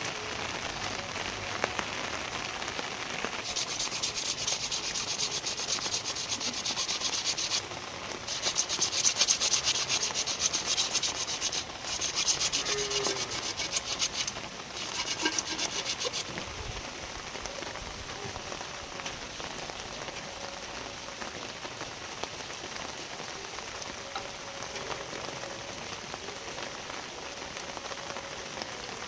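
Rapid abrasive rubbing in several runs over about twelve seconds, starting a few seconds in and stopping around the middle, with steady rain throughout.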